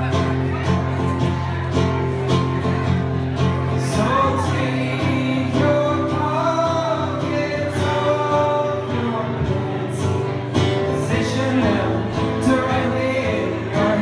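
A man singing live with his own acoustic guitar: steady chords played throughout, with the voice coming in about four seconds in.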